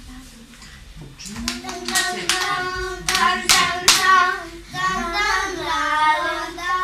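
Children singing, with a run of sharp handclaps between about one and four seconds in; the singing carries on in held notes after the claps stop.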